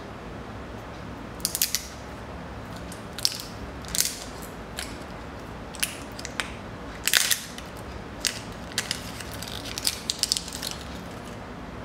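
Sealed Maybelline Color Tattoo cream eyeshadow pot being unsealed and opened by hand: irregular crinkles and sharp clicks of the plastic seal and lid being worked off.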